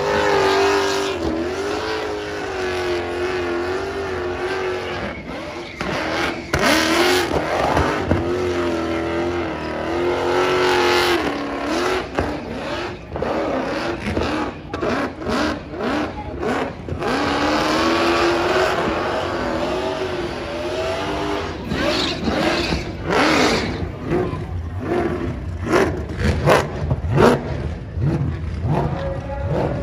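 Supercharged burnout car's engine held at high revs during a burnout, its pitch dipping and climbing as the spinning rear tyres pour out smoke. From about two-thirds of the way in, the revs turn into quick, choppy blips.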